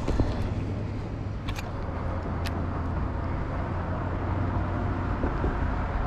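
Steady low outdoor rumble beside a river, with a few faint clicks in the first half.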